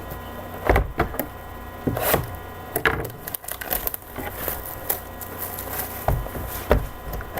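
A shrink-wrapped cardboard trading-card box being unwrapped and opened by hand: irregular taps, scrapes and crinkles of plastic wrap and cardboard, over a faint steady electrical hum.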